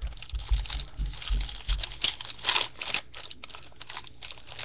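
Trading card pack wrapper crinkling while cards are handled, a quick run of short crackles that is loudest about two and a half seconds in, with a few soft low thumps early on.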